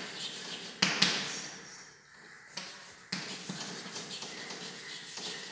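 Chalk writing on a blackboard: sharp taps as the chalk strikes the board, twice about a second in and again about three seconds in, with the scratchy ticking of chalk strokes between.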